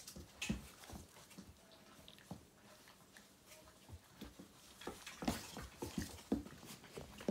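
Three puppies play-wrestling: scuffling, pawing and mouthing on a sheepskin rug, with short dog noises. The play is busiest and loudest about five to six and a half seconds in.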